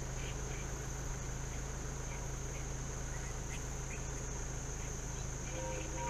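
Steady high-pitched drone of insects, over a low steady hum, with a few faint chirps scattered through.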